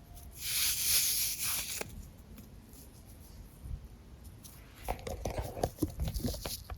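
A fidget toy being handled close to the microphone: a brief ripping, hissing rustle, then a quick run of small clicks and crackles near the end.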